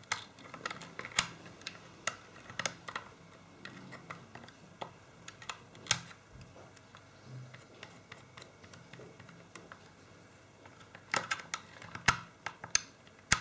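Metal tool poking and prying at stuck components on a corroded, glued-up circuit board, making irregular sharp clicks and ticks, with a quick flurry of them near the end.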